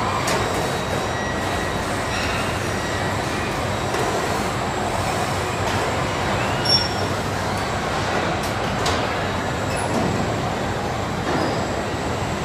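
Steady industrial din of an automated car-body welding line with KUKA robots, with short high squeaks and sharp clicks scattered through it. The loudest is a single sharp click a little past halfway.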